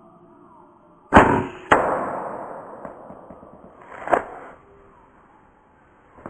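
Sub-12 ft-lb Air Arms S410 air rifle shot: a sharp crack about a second in, a second sharp knock half a second later followed by a rattle that fades over a couple of seconds, and another knock about three seconds after that.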